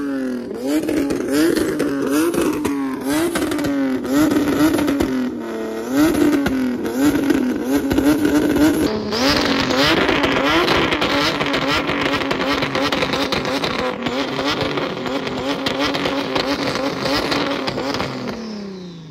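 Car engine revved hard in a quick string of blips, each rising and falling, then held at high revs for about nine seconds before the revs drop away near the end.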